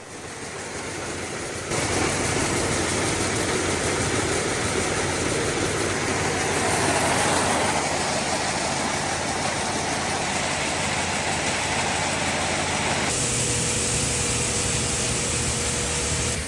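Farm machinery running steadily with a loud, even noise. The sound steps up a little under two seconds in and changes again near the end, when a steady whine comes in.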